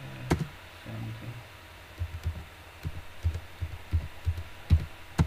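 Computer keyboard keystrokes picked up as dull low thumps, a quick irregular run of about ten of them in the second half as a short command is typed, with a sharper click just after the start and another at the end.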